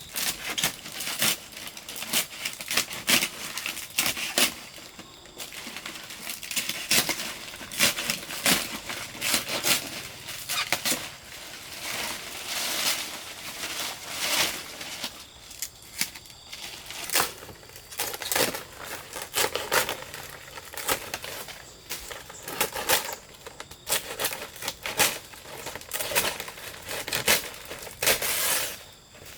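Irregular crinkling and rustling, in quick uneven bursts, as of material being handled, torn or crushed.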